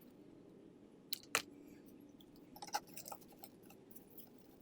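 Faint clicks and light rustling of artificial twig stems being handled, with the sharpest click about a second and a half in and a small cluster of clicks near the middle.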